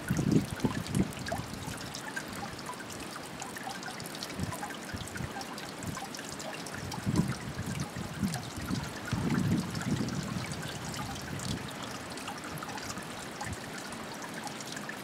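Thin streams of water from a stone fountain's spouts splashing steadily into a stone trough, a continuous trickling hiss. A few brief low rumbles rise over it, about a second in and again near the middle.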